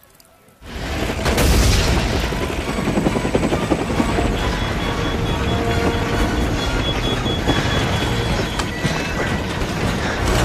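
Helicopter rotor and engine noise heard from inside the cockpit, starting suddenly about half a second in and staying loud and steady, with a high beeping warning tone from about four to eight seconds.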